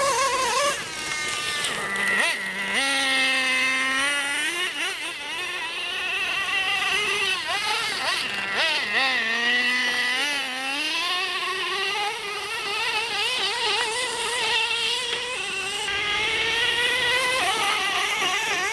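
Traxxas Slayer RC truck's TRX 3.3 nitro engine buzzing as the truck is driven, its pitch rising and falling continuously with the throttle.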